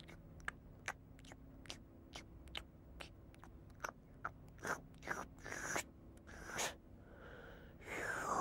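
A spoon clicking and scraping in a clear plastic bowl of Tubby Custard as it is eaten slowly: small light clicks at first, then louder, longer scrapes and mouthfuls from about halfway in. Near the end there is a louder, longer sound.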